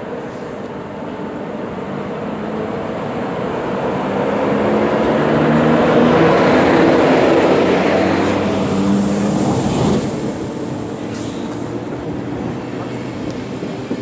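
NS Class 1700 electric locomotive hauling a train of Intercity coaches through a station. It approaches and passes with a steady hum that grows loudest as the locomotive goes by about seven seconds in, drops off sharply around ten seconds, and gives way to the rumble of the coaches rolling past.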